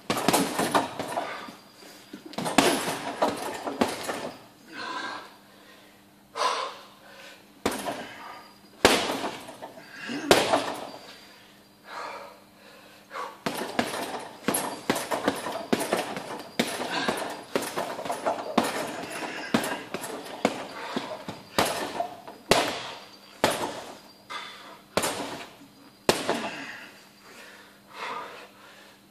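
Boxing gloves punching a hanging heavy bag: sharp thuds in quick combinations, with short pauses between the flurries.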